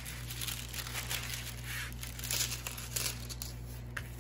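Clear plastic protective film on a diamond painting canvas crinkling as hands smooth and handle the sheet, in soft irregular rustles.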